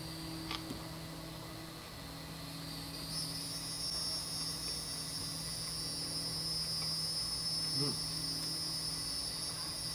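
A steady, high-pitched chorus of insects, which grows louder about three seconds in, over a low steady hum. There is a faint click about half a second in and a brief low murmur near the end.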